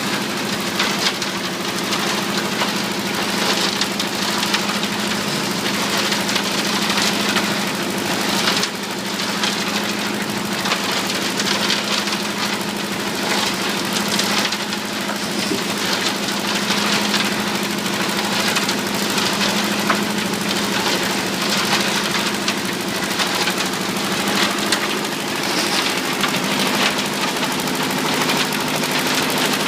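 RD 800 mixer at work: its engine runs steadily under a dense, continuous rattling clatter of the machinery.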